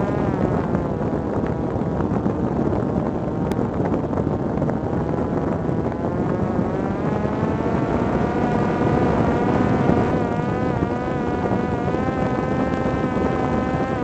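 Parrot Disco fixed-wing drone's electric motor and propeller whining steadily in flight over a dense rush of wind. The whine's pitch dips slightly about a second in and rises a little past the middle.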